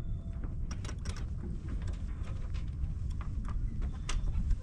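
On a J105 sailboat under way, a steady low rumble is heard with scattered sharp clicks and knocks, typical of deck hardware such as winches and blocks being worked.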